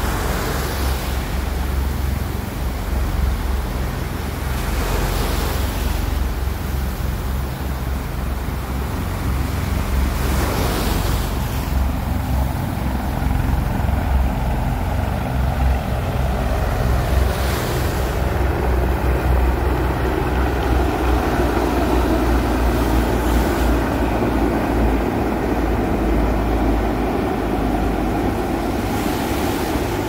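Three military helicopters flying in formation, their low rotor beat and engine drone growing louder from about halfway through as they approach. Breaking surf and wind buffeting the microphone run underneath.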